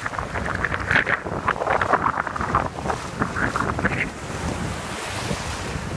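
Shallow surf splashing and washing over pebbles, with wind buffeting the microphone. The splashing eases about four seconds in, leaving a steady hiss of surf.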